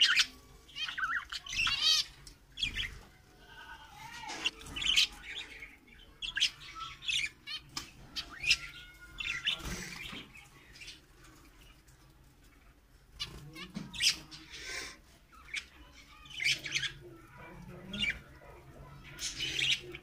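Zebra finches calling: a string of short, high calls coming in clusters, with a brief lull about halfway.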